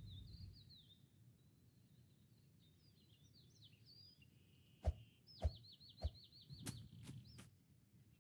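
Faint birdsong: scattered chirps and then a rapid trill. In the second half come a few sharp knocks, about half a second apart, of unknown origin.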